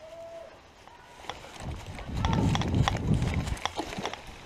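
Footsteps and gear knocking as an airsoft player moves quickly, with a dull rumble and a cluster of sharp clicks and knocks through the middle.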